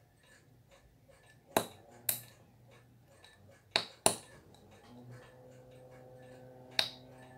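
Sharp metallic clicks of a steel spring bar tool slipping and snapping against a watch's spring bars and lugs, five clicks at uneven intervals. The spring bars are stuck fast in the lugs.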